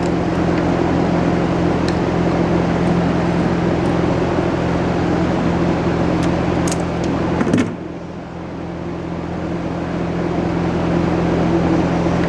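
A steady machine hum with an engine-like drone. About seven and a half seconds in there is a sharp click, after which the hum drops away and slowly builds back up.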